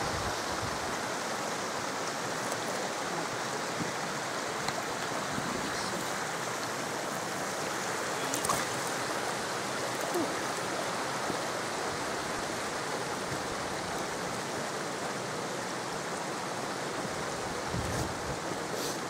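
Steady rush of running water from Gunnerside Beck, a fast moorland stream.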